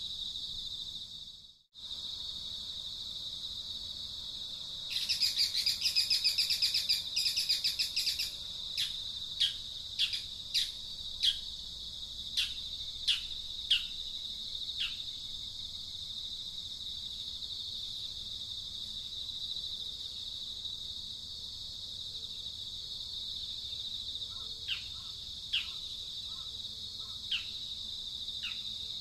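Steady high-pitched insect drone, over which a bird gives a rapid rattling trill a few seconds in, then a run of short, sharp falling chirp notes, with more scattered chirps near the end.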